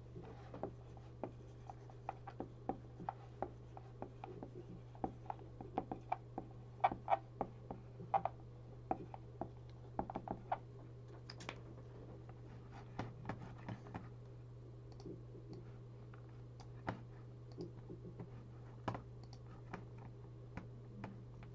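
BIC whiteboard marker writing on a whiteboard: a quick run of short strokes and taps through the first half, thinning to occasional clicks later, over a steady low hum.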